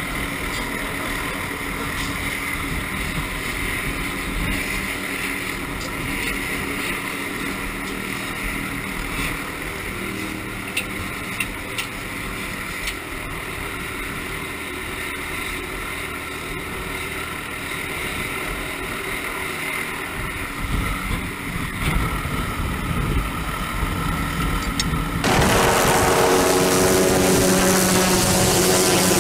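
Steady engine drone with wind rushing over the microphone. About 25 seconds in it changes abruptly to a louder, steady helicopter drone.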